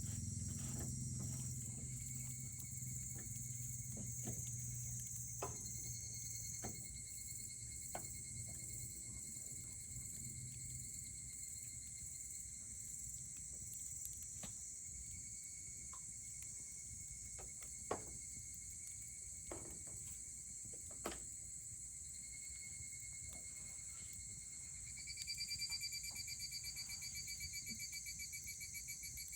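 Campfire crackling with scattered pops, a couple of them sharper near the middle, over steady high insect trilling; a second, pulsing trill joins near the end.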